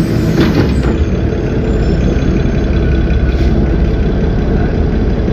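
Cummins ISB 6.7 inline-six diesel of an Agrale MT17 bus running steadily with a low rumble, and a brief hiss about half a second in.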